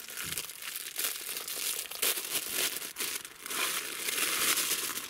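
Plastic bag of cut vegetables crinkling and rustling as it is handled and emptied into a cooking pot.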